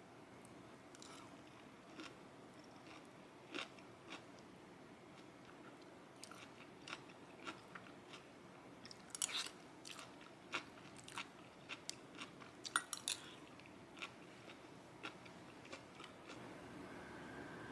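Faint, irregular small clicks and crunches, scattered through the stretch, with a denser cluster about nine seconds in and another near thirteen seconds.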